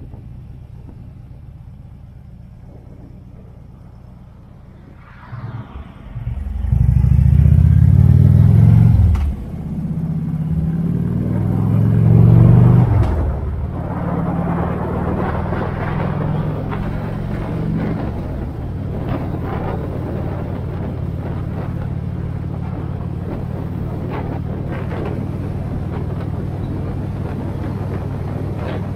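A motor vehicle's engine running quietly, then accelerating hard about six seconds in. It climbs in two surges with a short break between them, like a gear change, then settles into steady cruising with road and wind noise.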